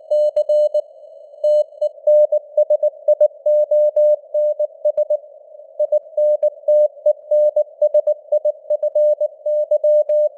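Morse code (CW) at 19 words per minute: a single mid-pitched beep keyed on and off in dots and dashes, over a narrow band of simulated radio hiss.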